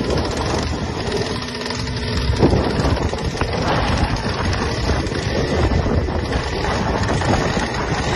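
Wind buffeting the microphone, a steady rushing noise.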